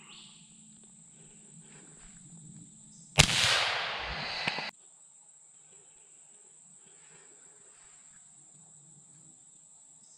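Insects droning steadily in a high, unbroken band. About three seconds in, a sudden loud crack and a rush of noise cut across it for about a second and a half, then stop abruptly.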